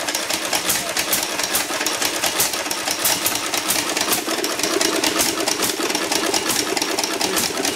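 1937 Stover single-cylinder hit-and-miss stationary engine running flat out, firing on every cycle in a quick even beat of about five strokes a second instead of hitting and missing. A worn piece on the governor linkage fails to hold the exhaust valve open, so the governor cannot regulate the speed.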